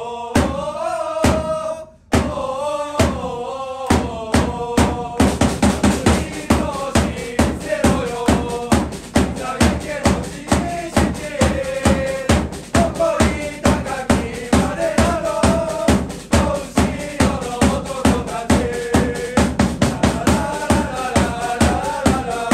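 Football supporters' chant: a drum beating a steady rhythm under a slow melody, with the drumming growing denser and a snare-like clatter joining about five seconds in.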